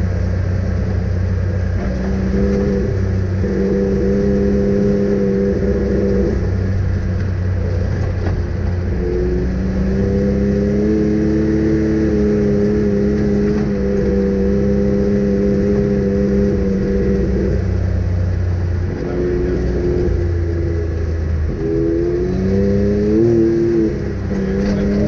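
Off-road vehicle's engine running hard, its pitch holding steady for stretches and then shifting up or down as it accelerates and eases off, with a few rising revs near the end.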